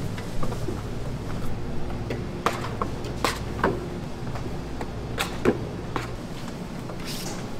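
Metal bench scrapers clacking and scraping on a stainless steel worktable as dough is cut into portions: irregular sharp clacks, the loudest about five and a half seconds in, over a steady low hum.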